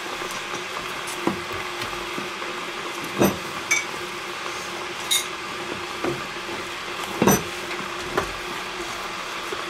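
Gloved hands kneading minced meat in a stainless steel bowl, the metal bowl knocking and clinking several times as it is worked, loudest about three seconds in and again about seven seconds in, over a steady background hum.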